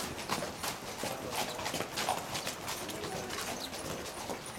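Hoofbeats of a ridden horse clip-clopping around an arena, about three steps a second.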